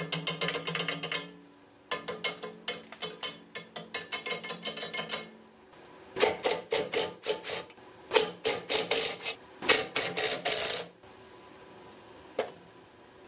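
A metal scraper rasping in quick strokes against the inside of a Black & Decker Model 74 bench grinder's steel wheel guard, chipping off caked grinding dust, in two runs of rapid scraping. After that come louder clusters of clicks and scrapes as a screwdriver works on the guard's fasteners, and a single click near the end.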